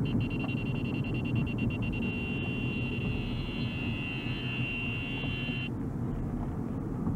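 Low road rumble inside a car. Over it a high-pitched tone pulses rapidly for the first couple of seconds, then holds steady and cuts off abruptly about two-thirds of the way through.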